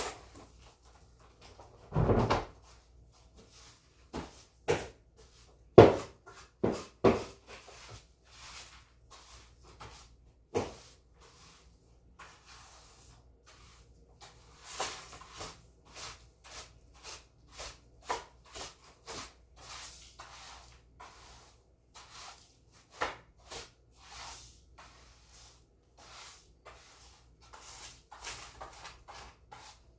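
Household cleaning by hand: an irregular run of short knocks, bumps and scrapes from cleaning tools and things being moved about, with louder thumps about two and six seconds in.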